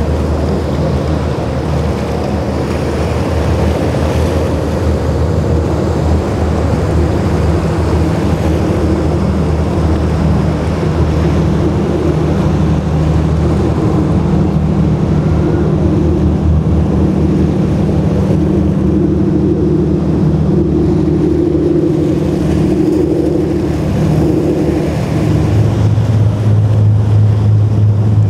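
Boat engines running steadily, with surf and wind noise on the microphone. About 25 seconds in, a louder, lower engine note takes over.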